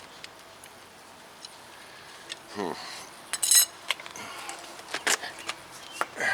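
Metal hand tools and fasteners clinking and tapping against each other during work on a car's front suspension, a scattered series of sharp clicks, loudest about three and a half seconds in.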